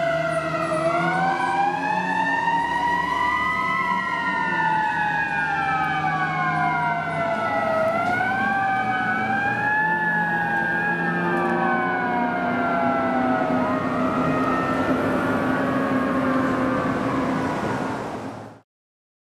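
Fire engine's sirens wailing, several tones sweeping slowly up and down and crossing one another as the engine drives off. The sound cuts off suddenly near the end.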